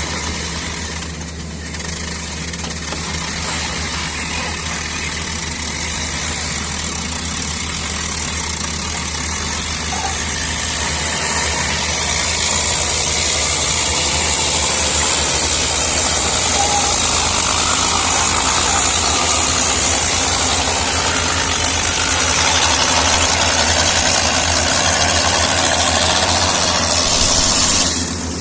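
Excavator's diesel engine running steadily with a low hum, growing gradually louder along with a rising hiss, then cutting off suddenly near the end.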